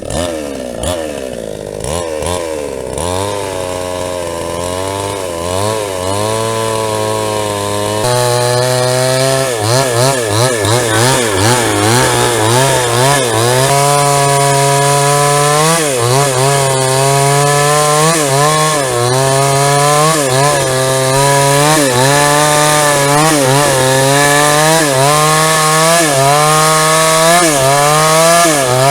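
JCK chainsaw with a 22-inch bar sawing a log into a plank. The engine runs under load, its pitch dipping and rising every second or so as the chain bites into the wood, and it is louder and steadier from about eight seconds in.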